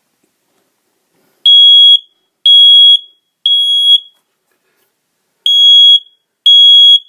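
Hallway smoke alarm sounding its test signal: loud, high-pitched half-second beeps in the temporal-three pattern, three beeps about a second apart, a pause, then the next group starting near the end. The pattern is the standard fire-evacuation signal.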